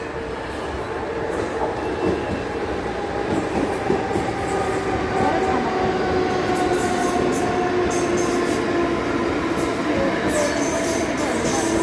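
Suburban local electric train running on the rails: a steady rumble that slowly grows louder, with long, drawn-out wheel squeals that slowly fall in pitch, and scattered high clicks.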